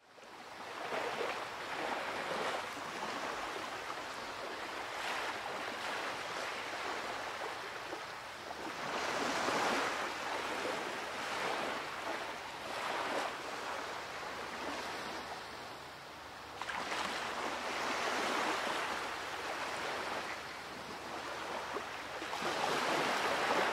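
Ocean waves washing, a rushing that swells and fades every few seconds.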